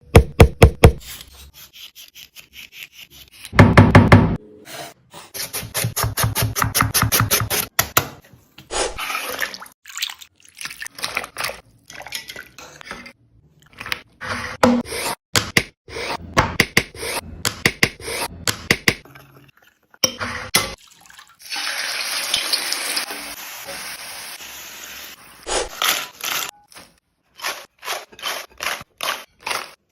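Kitchen work sounds from preparing potatoes: quick series of repeated knocks, and a stretch of running water about three quarters of the way through.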